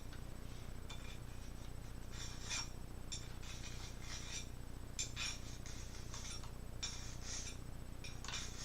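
Faint, scattered rubbing and clicking from a gaming mouse being slid around and clicked on a book's surface, with short scrapes every second or so over a steady low hum.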